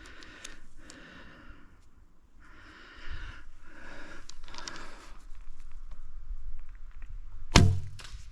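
A person breathing audibly, several breaths in a row, then about seven and a half seconds in one sharp, loud shot from a recurve bow, followed by a fainter knock.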